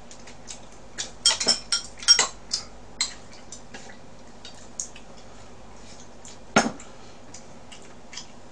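Chopsticks clinking against a frying pan and bowls while food is picked up: a run of light clicks in the first few seconds, then one sharper click about six and a half seconds in.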